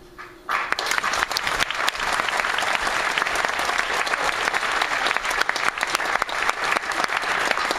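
Audience applauding, starting abruptly about half a second in.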